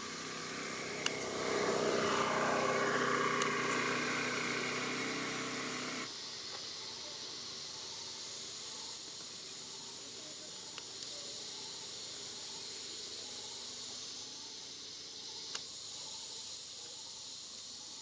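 Outdoor ambience: a steady high hiss of insects, with a louder droning noise for the first six seconds that stops abruptly. A few sharp clicks.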